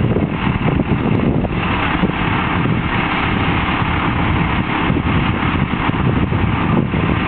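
Telehandler's diesel engine running steadily.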